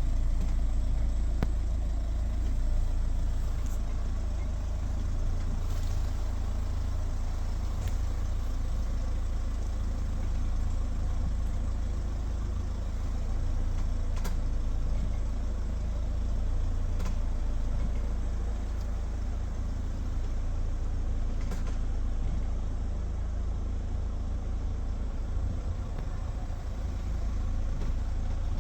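Steady low rumble inside the cabin of a Hyundai Grand Santa Fe on the move, with a few faint short clicks or knocks at uneven times. These are the intermittent knocks from the front-left suspension that the owner is trying to trace; one suggestion is the front brake pads shifting in their caliper brackets when hot.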